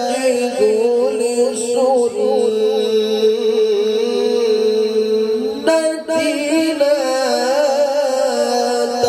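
A man reciting the Quran in melodic tilawah style through a microphone and PA system, holding long, wavering ornamented notes. After a brief break about six seconds in, a new phrase starts on a higher pitch.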